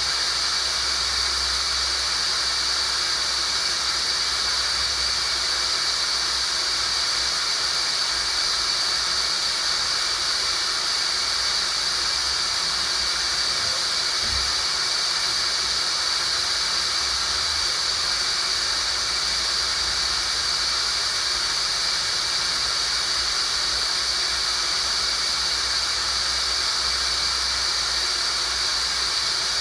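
Tinnitus sound-therapy signal: a steady high-pitched tone over an even hiss.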